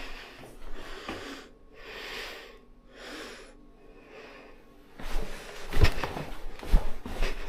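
A person breathing out twice close to the microphone, soft hissy puffs, followed about five seconds in by a few light knocks and rustles of something being handled.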